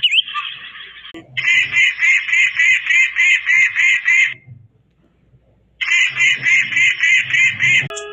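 A bird calling in two bouts of rapid, evenly repeated harsh notes, about four a second. A short rasping call comes before the first bout.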